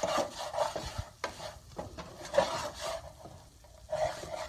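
A spatula stirring and scraping flour into hot oil and pan drippings in a nonstick skillet to cook a roux, in uneven strokes over a sizzle from the pan.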